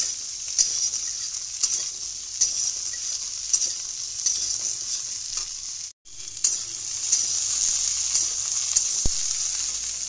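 Cubed potatoes and ridge gourd sizzling steadily as they fry in oil in a kadai, with a metal spatula scraping and knocking against the pan about once a second as they are stirred. The sound cuts out for a moment about six seconds in, then carries on.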